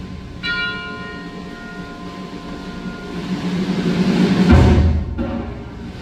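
Concert band playing: a held low chord, a bright bell note struck about half a second in and left to ring, then a timpani roll that swells into a loud full-band accent near the end.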